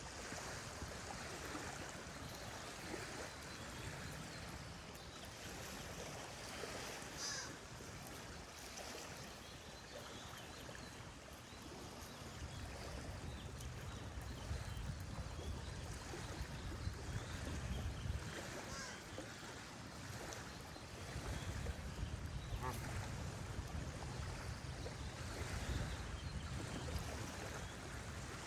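Geese honking now and then over a steady rush of flowing water, with small birds chirping. A low rumble grows louder about halfway through.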